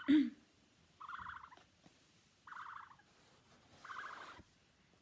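Recorded ostrich calls played back: a buzzy, pulsing call about half a second long, repeated roughly every second and a half. A brief low thump comes right at the start.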